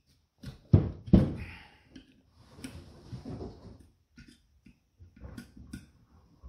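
Metal clicks and knocks of a hex key working the motor-mount bolts while the servo motor is shifted on its aluminium mounting plate to slacken the drive belt. Two sharp knocks about a second in, then lighter scattered clicks.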